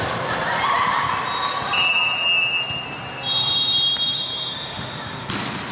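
Two steady whistle blasts at different pitches, the first about two seconds in and a higher one just after three seconds in, lasting about a second each, over a general gym hubbub; a sharp knock near the end.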